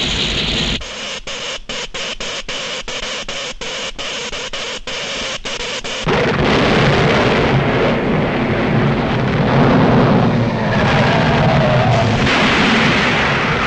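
Cartoon sound effects: for the first few seconds an electric crackle that keeps cutting out in quick short gaps, then a sudden explosion about six seconds in. A long, loud rumble of shaking, crumbling buildings follows.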